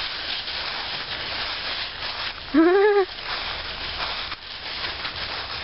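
Dry fallen leaves rustling and crunching under a man's feet and a border collie's paws as the dog jumps around him. About halfway through there is one short vocal call that rises and falls in pitch.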